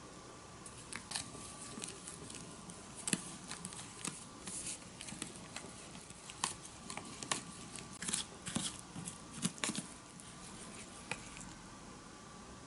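Plastic spoon stirring powder and water into batter in a thin plastic tray: irregular clicks, taps and scrapes of plastic on plastic, busiest in the middle and dying away near the end.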